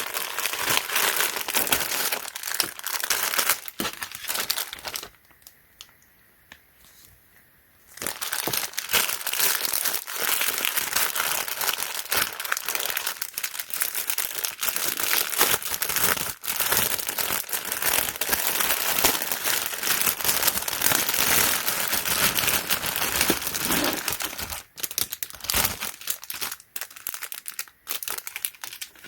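Plastic packaging crinkling and rustling as it is handled and opened, with sharp crackles throughout. It stops for about three seconds after five seconds in, then starts again.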